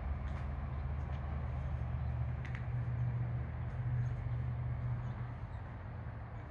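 A low, steady engine rumble with a deep even hum that swells through the middle and eases off near the end, like a vehicle or machine running at a distance. A faint short high chirp comes about two and a half seconds in.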